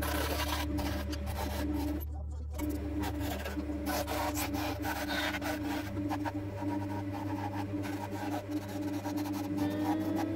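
Wood lathe motor humming steadily while a turning tool cuts a spindle of ash turned between centres: a rough, continuous scraping of the tool peeling shavings, which breaks off for a moment about two seconds in. Near the end a whine begins to rise in pitch.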